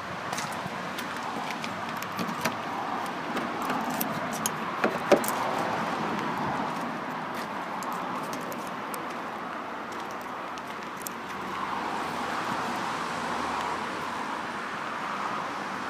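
Keys jangling and light clicks in the hand for the first few seconds, the loudest clack about five seconds in, over a steady rushing outdoor background that swells again near the end.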